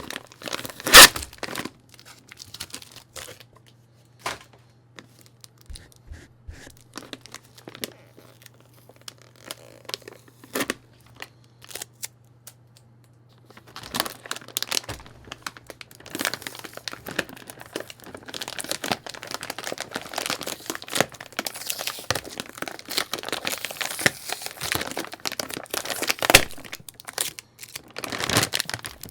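Plastic packaging being handled and torn open. There is a sharp snap about a second in and scattered small clicks, then steady crinkling and rustling from about halfway through.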